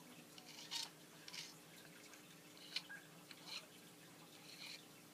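Faint, scattered soft scrapes and clicks, a few of them seconds apart: a screwdriver scooping wet Sterno gel fuel into the steam engine's burner.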